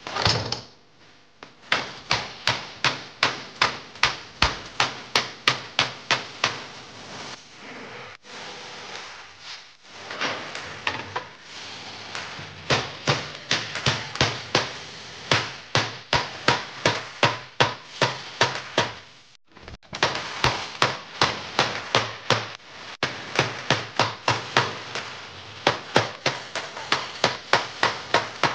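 Hammer blows on a tow ball used as a punch, driving it into holes cut in a sheet-steel strip to flare their edges. Sharp metal-on-metal strikes come about two to three a second, in runs broken by short pauses about eight and nineteen seconds in.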